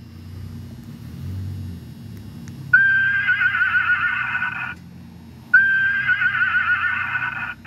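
Boom Blasters electronic car horn sounding its horse-whinny call twice, each a loud blast of about two seconds that starts on a held note and breaks into a fast wavering neigh. The first comes about three seconds in, the second after a short gap, and a third starts right at the end.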